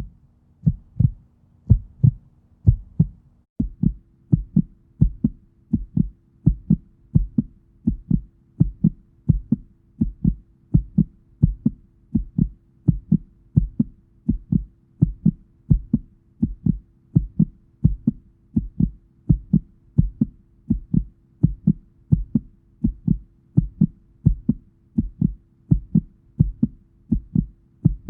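Heartbeat sound effect: a steady run of low thumps, about two a second, over a faint low hum that shifts slightly in pitch a few seconds in.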